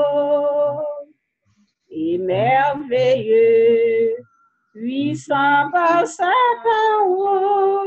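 A woman singing a hymn unaccompanied, in long held notes that break off twice for short pauses between lines.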